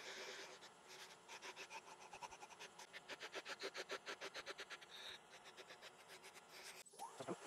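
Wooden box pieces pressed against a spinning cloth buffing wheel on a lathe while being polished: a faint, rapid, rhythmic rubbing and scratching, with a short rising swish near the end.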